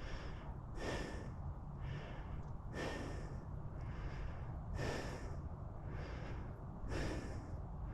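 A man breathing heavily through the microphone, a puff about every second, the stronger ones every two seconds or so.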